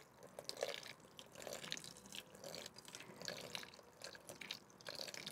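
Water being poured into a small bucket: faint, irregular splashing and trickling.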